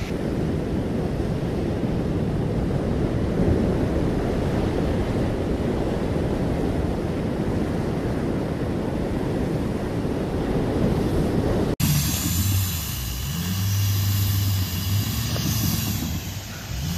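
Wind rumbling on the microphone over surf for most of the clip; after a sudden cut about two-thirds through, a diesel Ford Super Duty pickup's engine revs under load as it sits in soft sand, puffing black exhaust smoke.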